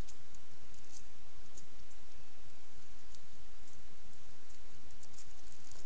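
Steady hiss from a trail camera's microphone, with a low rumble underneath and faint, irregular high ticks scattered through it.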